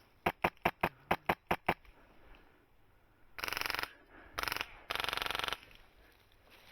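HPA airsoft rifle, a Polarstar F2 engine, firing: eight quick single shots in under two seconds, then three full-auto bursts, the last the longest.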